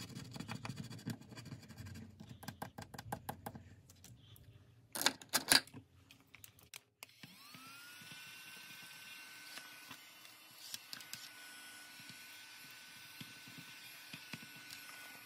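Scratching and scraping at scratch-off cards, with two louder rasps about five seconds in. About seven seconds in, a small battery mini desk vacuum switches on: its motor spins up with a quickly rising whine and settles into a steady high hum.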